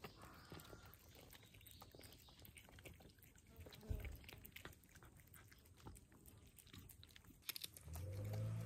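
Faint crunching and clicking of stray cats chewing dry food, with one low thump about four seconds in. Background music starts near the end.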